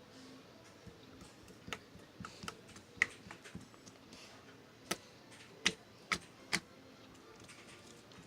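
Irregular sharp clicks and taps, about a dozen, the loudest bunched near the middle.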